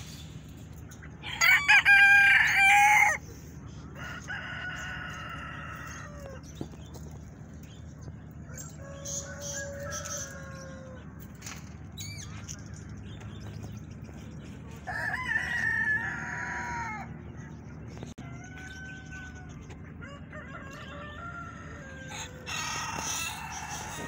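Roosters crowing one after another, about six crows in all. The first, about a second in, is close and much the loudest; the others are fainter. A steady low hum runs underneath.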